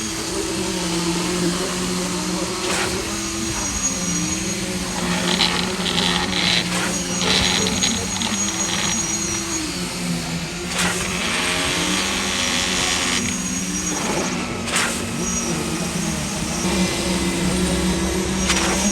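Diesel engine of concrete-pouring machinery running steadily, its pitch repeatedly sagging and recovering under changing load, with stretches of rattling and scraping in between.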